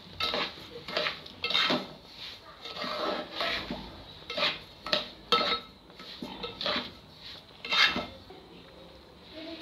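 Metal spoon scraping and knocking against a metal pot while dry roasted semolina and sugar are stirred, in irregular strokes about once a second. The loudest knock comes near the end.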